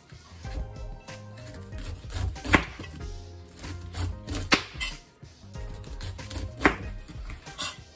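A kitchen knife slicing down through pineapple rind and knocking on the cutting board as each strip comes off. There are several sharp knocks, the loudest about every two seconds.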